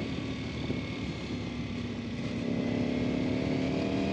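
Ducati Panigale V4R's 998 cc V4 engine heard from the rider's seat while cruising in fifth gear, with wind rushing past; about halfway through the engine grows louder and its note rises gradually as the bike picks up speed.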